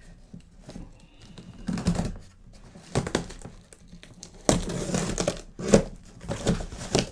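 A cardboard shipping box being opened by hand: tape slit or torn and flaps and packing rustled and crinkled in irregular bursts, busiest and loudest in the second half.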